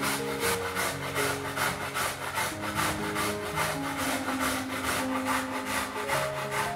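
Food being grated on a stainless steel box grater: quick, rhythmic rasping strokes, evenly repeated, with the grater's base knocking lightly on a wooden board.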